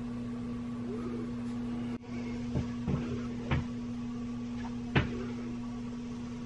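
A steady low electrical-sounding hum with a few short, light knocks, the loudest about five seconds in.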